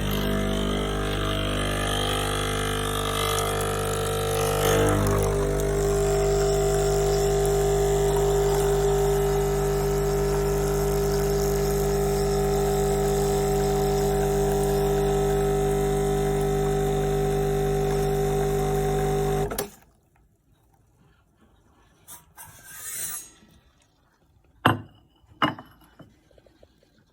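Sage Barista Express espresso machine running with a loud, steady mechanical hum that cuts off suddenly about two-thirds of the way through. A few seconds later come two sharp knocks.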